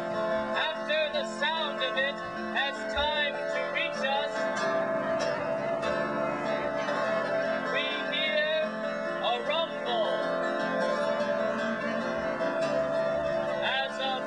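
Live acoustic string music: a plucked, zither-like instrument played with a larger string instrument, sustained notes running steadily through.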